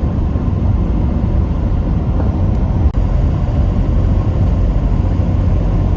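Steady low rumble of a diesel vehicle's engine and tyres driving on the highway, with a brief dropout about three seconds in.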